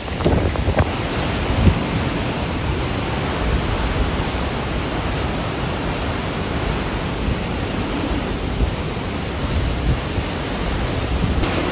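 Category 4 hurricane wind and rain beating on a car, a steady loud rushing noise with a few sharp knocks in the first two seconds.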